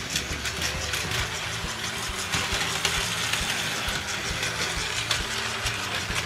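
Plarail Keisei 3000 series toy train, battery-motored, running laps of its plastic track: a steady, smooth motor whir with frequent small clicks of the wheels over the track.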